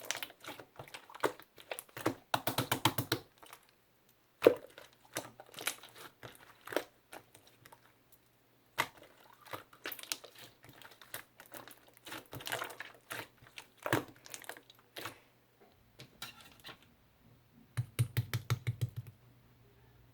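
Jelly-like tangerine pudding being pressed and squished by hand, giving irregular sticky clicks and crackles, with a quick run of rapid clicks about two seconds in and another near the end.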